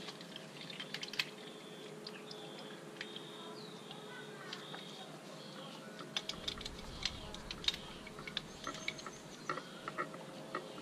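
Light metallic clicks and taps of two wrenches on the airless paint sprayer's gun-to-hose nut as it is loosened. Birds chirp faintly in the background.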